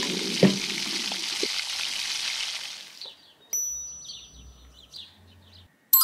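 Freshly air-fried chicken thighs sizzling in the hot air fryer basket, the hiss fading away over about three seconds, with a couple of light clicks. Then a short twinkling sparkle sound effect of high chimes and chirps.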